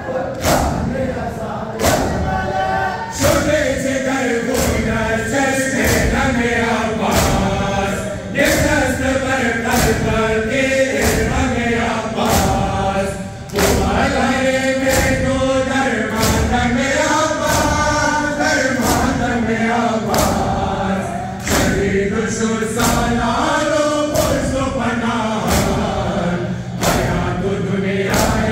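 A crowd of men chanting a Shia nauha in unison, with regular sharp slaps of hands striking bare chests (matam) keeping the beat.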